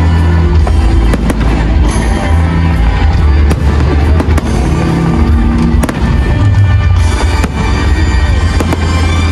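Aerial fireworks bursting in quick succession, sharp bangs and crackle, over loud music with a heavy bass line.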